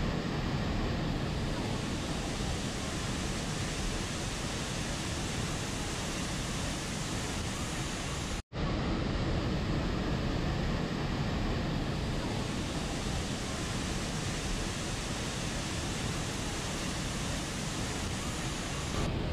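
Steady rushing of a waterfall pouring into a pool, broken by a split-second dropout about eight seconds in.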